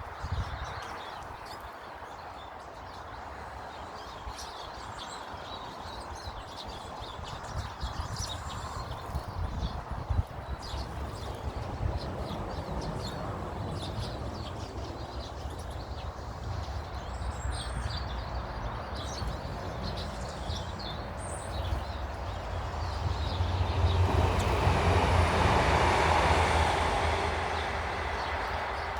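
Small birds chirping throughout over a steady low rumble. In the last third a passing vehicle's rushing rumble swells up, becomes the loudest sound, then fades away.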